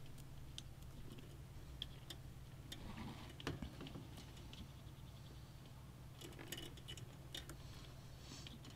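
Scattered faint clicks and taps of small plastic front-panel connectors and cables being handled at a PC motherboard, over a low steady hum.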